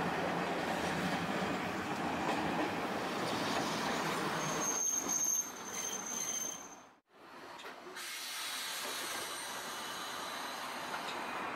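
Tosaden streetcar rolling in on street track, with a steady rumble of wheels and a thin high wheel squeal for a couple of seconds as it passes close. After a brief dropout, a quieter steady hum follows.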